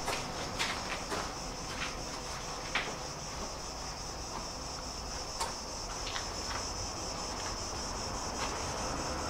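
Light knocks and rustles, several in the first three seconds and a few more later, over a steady high-pitched hum.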